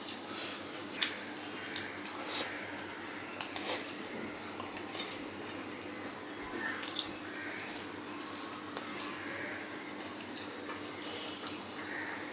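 Close-miked eating by hand: wet chewing and irregular mouth clicks and smacks as fingers mix and scoop rice on a steel plate, the sharpest click about a second in, over a faint steady hum.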